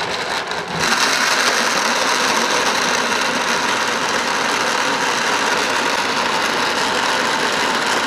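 Electric blender motor running steadily, pureeing boiled potato and kabocha squash with soy milk. It gets louder about a second in and stops at the very end.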